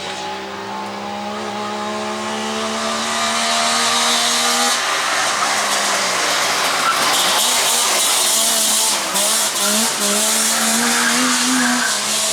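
Wartburg 353 rally car's three-cylinder two-stroke engine pulling hard, its pitch climbing slowly and steadily. About five seconds in the sound turns rougher, with the revs rising and falling under a loud hiss of tyre and road noise.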